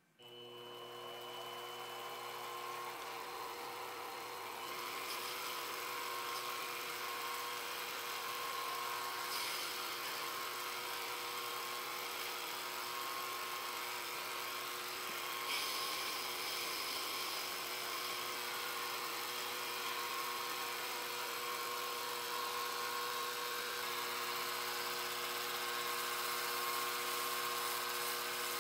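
Small hobby lathe's electric motor and spindle running up to speed, then running with a steady whine while a cutting tool turns down a small metal pin held in a collet.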